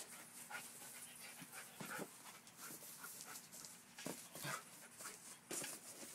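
A standard poodle and a Labradoodle puppy panting and scuffling as they play: short, irregular, faint breaths and rustles.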